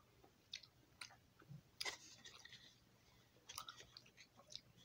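Faint wet smacks and clicks of a person chewing gum, a few irregular mouth sounds spaced about a second apart, the loudest a little under two seconds in.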